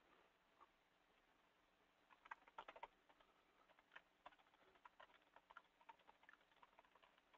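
Near silence broken by faint, irregular computer clicks: a quick cluster about two and a half seconds in, then scattered single clicks.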